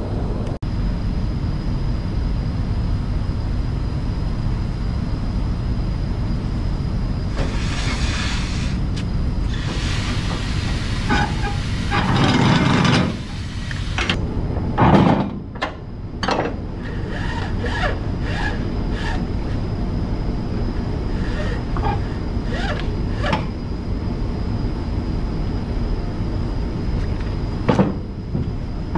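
Steady low rumble of an idling truck engine, under the swish and rustle of flatbed cargo straps being pulled and thrown over a pipe load. A thump comes about halfway through, followed by a run of sharp clicks and knocks.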